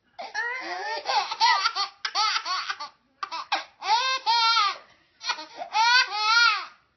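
Baby giggling in three bouts of quick, high-pitched laughter.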